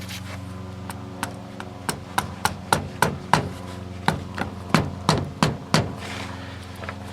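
Repeated hammer blows, about fifteen sharp, irregular strikes at roughly two to three a second, as a stiffened tire is worked onto its rim; they stop about a second before the end.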